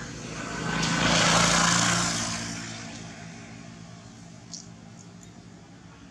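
A motor vehicle passing by, its engine hum swelling over about a second and then fading away over the next couple of seconds. A small click follows a little after the middle.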